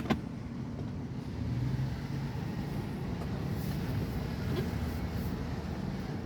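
Dodge Durango's 5.7 Hemi V8 running with a steady low rumble. A sharp click comes just at the start, and the engine note swells briefly about a second and a half in.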